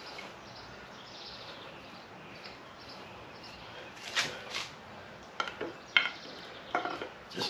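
A piston being knocked out of its cylinder bore in an LS 6.0L LQ4 V8 block with a wooden dowel rod: two sharp knocks close together about four seconds in, then several lighter knocks and metal clatter.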